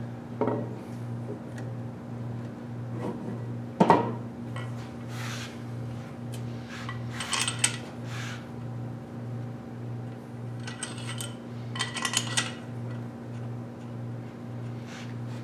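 Cast-iron cylinder head of a Ford 351M V8 being lowered onto the engine block, with a solid metal knock about four seconds in as it sets down on the gasket. Lighter metallic clinks and rattles follow as it is shifted into place.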